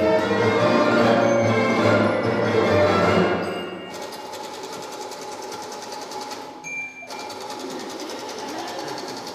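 Orchestral music stops about four seconds in and gives way to a typewriter clattering with rapid, even keystrokes. About seven seconds in there is a single bell ding and a short break, then the typing starts again.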